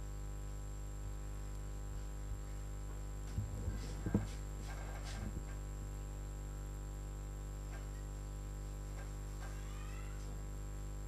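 Steady electrical mains hum with a stack of overtones, the noise floor of the recording chain. A few soft knocks and brief sounds come about a third of the way in.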